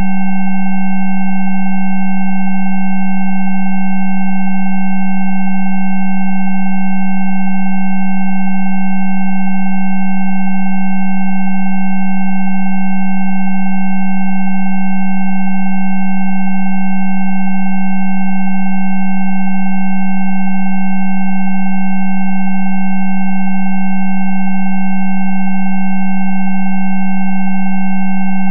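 Synthesized Rife frequency tones: a loud, steady low hum with several fainter, higher pure tones layered over it, unchanging in pitch and level.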